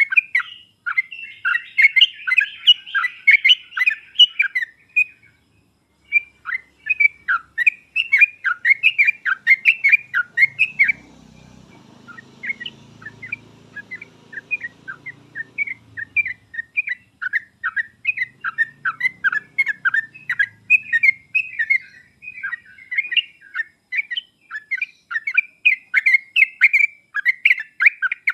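Yellow-vented bulbul (trucuk) song: rapid, bubbly chattering phrases of quick notes repeated over and over, with a brief pause about five seconds in.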